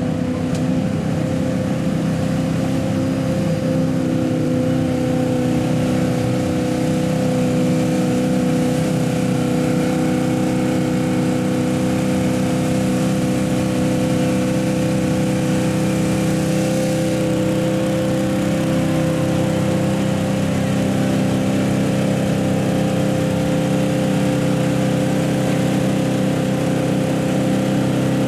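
Lifted mud-bog pickup truck's engine held at steady high revs as its tyres spin and churn through deep mud.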